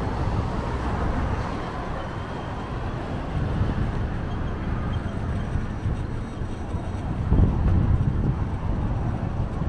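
City street and traffic noise with wind on the microphone, heard from a moving bicycle: a steady rumble, with a louder surge about seven seconds in.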